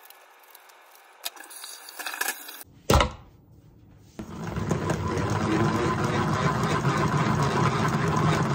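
Kitchen scissors snipping lettuce in a few faint clicks, then one sharp knock just before three seconds in. From about four seconds in, a plastic salad spinner is spun by hand: a loud, steady whirring with a fast ticking rattle.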